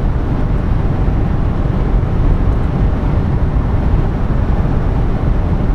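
Steady road and engine noise inside a car cabin at highway speed: a loud, even low drone with no changes.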